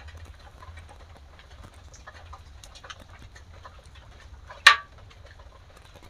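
Wood-and-straw cooking fire crackling with scattered small pops under a clay pitha pan. About three-quarters of the way through comes a single sharp, loud knock.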